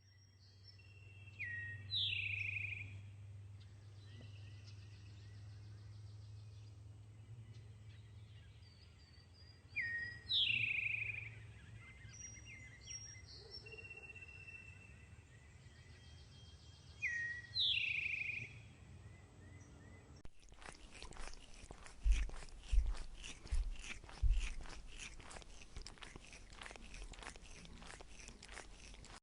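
A bird calling: short falling calls come in three groups, about eight seconds apart, over a steady low hum. About two thirds of the way through, the sound cuts abruptly to dense crackling clicks with a few low thumps.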